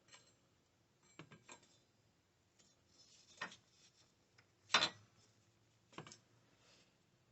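Light metallic clicks and knocks as battery hold-down hardware is fitted, about five in all. The loudest comes a little under five seconds in.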